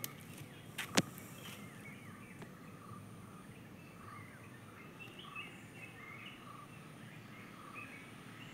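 Small birds chirping in short, scattered calls over a steady low background noise, with one sharp click about a second in.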